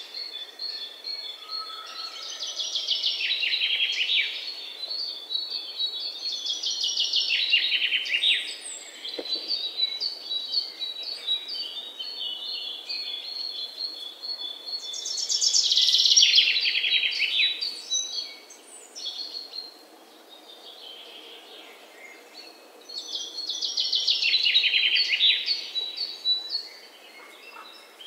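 Songbirds singing in bouts of rapid, high chirps and trills, with quieter chirping between the bouts; the loudest bout comes about halfway through.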